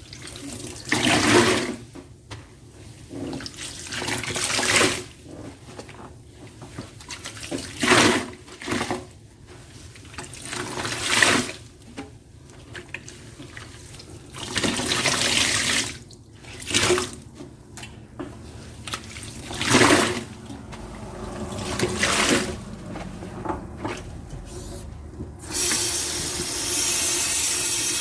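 A wet, soapy sponge being squeezed again and again, each squeeze a short gush of water, a dozen or so in all. Near the end a tap is turned on and runs steadily.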